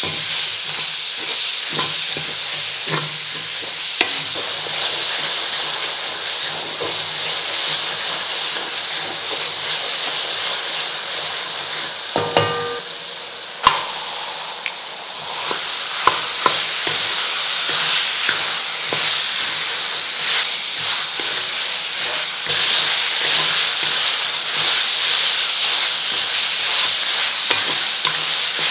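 Tomatoes and masala, then raw mutton, frying and sizzling in a metal kadai while a spatula stirs and scrapes the pan. About halfway there is a brief ringing clang and a sharp knock as the meat goes in, and the sizzling is louder in the last third.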